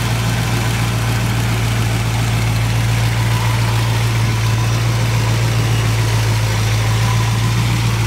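Holley-carbureted Chevy 400 small-block V8 idling steadily, an even low hum with no revving.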